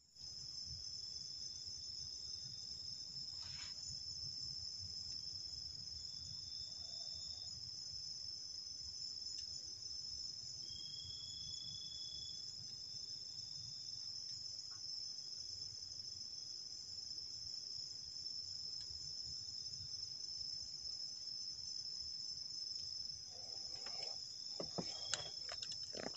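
Crickets and other night insects trilling in a steady, high-pitched chorus. A few clicks and knocks come near the end.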